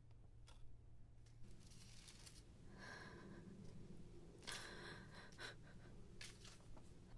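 Near silence: a low steady hum, with a few faint rustles of photo prints being handled.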